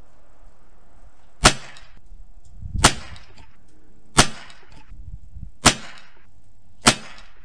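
Five shots from a Savage B22 Precision bolt-action .22 LR rifle, fired about one every second and a half.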